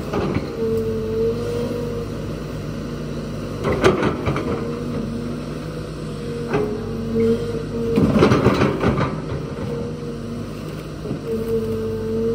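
SANY hydraulic excavator working under load while uprooting a stump: a steady diesel drone with the hydraulic pump whining in spells. Sharp cracks and knocks about four seconds in and again around eight to nine seconds as the bucket tears at the roots and soil.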